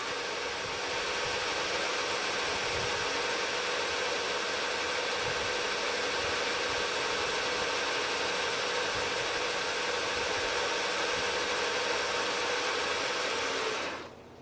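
Knee mill running with an end mill cutting an angled face on a part held in a vise: a steady machine whine with a hiss over it. It stops suddenly near the end.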